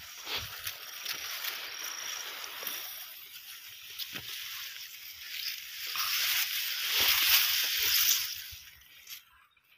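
Tall grass rustling and brushing close against the recording phone as it is pushed through a grass thicket, loudest about six to eight seconds in and dying away near the end.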